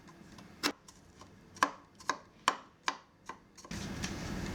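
Kitchen knife chopping garlic on a cutting board: about six sharp, unevenly spaced chops. A steady faint hiss takes over near the end.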